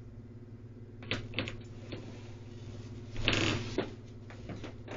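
Small creaks and clicks of a person moving about and handling things, with a short rustling scrape a little after three seconds, over a steady low hum.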